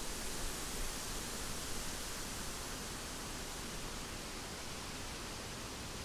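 Steady hiss of rain falling on woodland, even throughout, with no single drops, birds or other events standing out.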